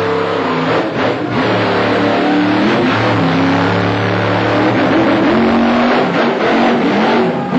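Monster truck engine at hard throttle, revving up and down repeatedly as the truck drives and jumps.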